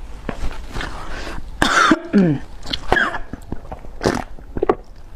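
A woman coughing while eating spicy noodles: one hard cough about two seconds in, followed by a falling, strained vocal sound and a shorter one just after. Small eating clicks and mouth sounds around it. She has choked on the noodles.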